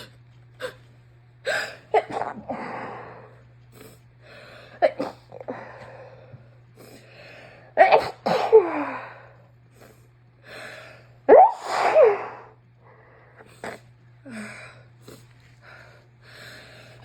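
A woman with a head cold sneezing several times in a row: wet, messy sneezes through a congested, snotty nose, each a sudden burst with a voiced tail that falls away.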